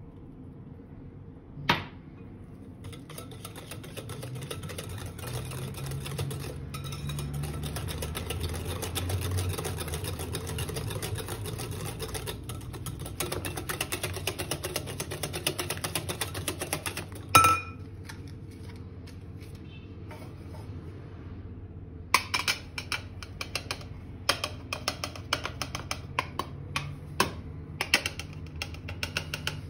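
Wire balloon whisk beating eggs and oil in a glass bowl, a rapid steady clatter of wire against glass, ending about halfway through with a sharp knock. After a pause, a run of sharp clicks and taps of utensils against the bowl follows.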